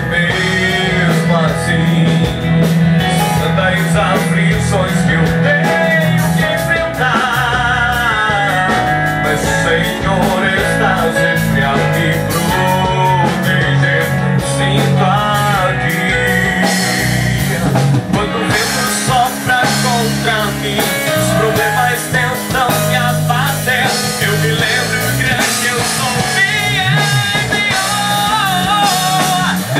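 Christian rock band playing a song, with a lead vocalist singing over electric guitar, bass and drums.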